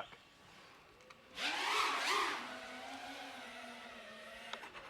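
5-inch FPV freestyle quadcopter's motors and propellers whining as it flies, starting about a second in with the pitch swinging up and down under throttle, then settling into a steadier, fading hum.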